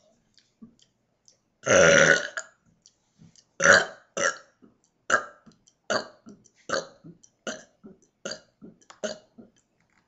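A woman burping deliberately: one long loud burp about two seconds in, then a quick run of about ten short little burps, roughly two a second.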